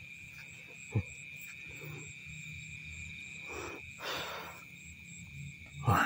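Steady high-pitched drone of night insects, with a brief thump about a second in and a few short rustles of movement through grass in the second half.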